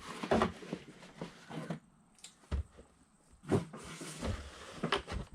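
Cardboard packaging being handled: a series of short knocks, scrapes and rustles as a boxed Funko Pop figure is pulled out of a larger box.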